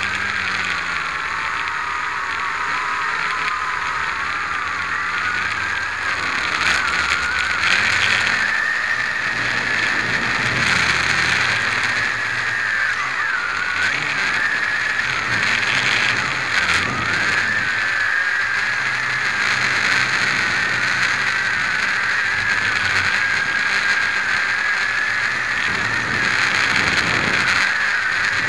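V262 quadcopter's motors and propellers whining steadily, heard close up from the camera mounted on the craft. The pitch wavers as the throttle changes, dipping briefly about 13 and 16 seconds in.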